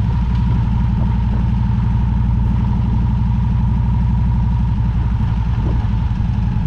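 Victory Cross Roads V-twin motorcycle engine running steadily at low speed, a steady low rumble heard from the bike itself.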